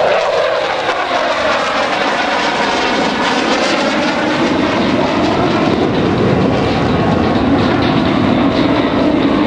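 F-16 Fighting Falcon fighter jet's engine noise as the jet banks and climbs away overhead: a loud, steady rush with slowly sweeping tones through it, the low rumble growing stronger in the second half.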